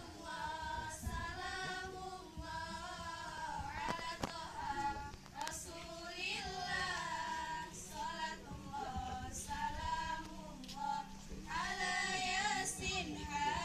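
A group of girls singing a melody together into microphones, with long held notes that slide between pitches.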